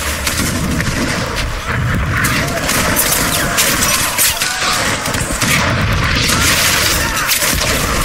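Loud wind buffeting the microphone: a rough, steady rush with an uneven low rumble.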